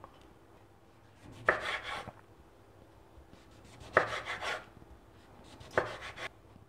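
Three short bouts of a knife cutting food on a cutting board, each starting with a sharp knock and trailing off in a brief scraping rasp.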